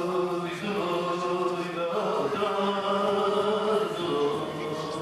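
Turkish folk song (türkü) sung by a male voice in long held notes, with bağlama (long-necked saz) accompaniment.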